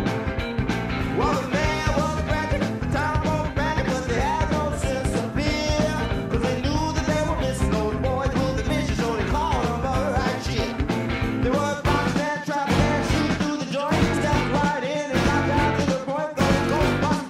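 Background music: an upbeat song with a singing voice over a band and a steady beat.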